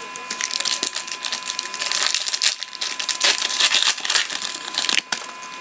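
Packaging crinkling and rustling, a dense crackle of small clicks, as trading-card packs are opened and handled. It stops about five seconds in with one last click.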